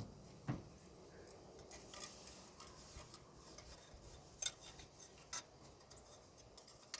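Faint rubbing and scraping with a few sharp clicks and knocks as plastic air intake parts and an air filter are worked by hand into a tight fit.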